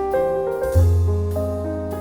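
Background music: gentle piano playing chords over a bass line.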